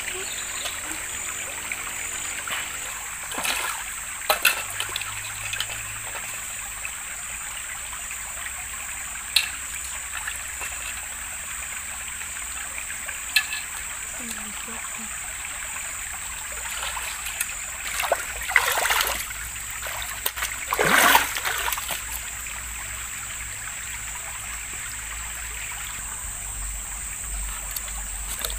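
River water flowing steadily, with a few short splashes breaking in, the two biggest about two-thirds of the way through.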